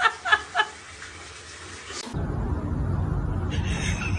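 Someone laughing in short rhythmic bursts that stop about half a second in, then a steady low rumbling noise after a cut about two seconds in.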